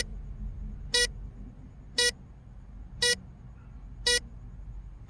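An electronic beeper sounding short, high, clear beeps about once a second, six in all, over a low steady rumble.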